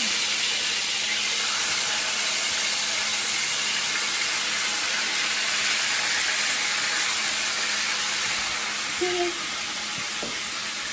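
Seasoned fish pieces sizzling as they fry in hot oil in a skillet, a steady hiss that eases a little near the end.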